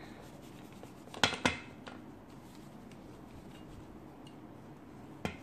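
Paper wrapping being ripped off a plastic dinosaur toy: two short, sharp crackles a little over a second in, then faint handling, with one more crackle near the end.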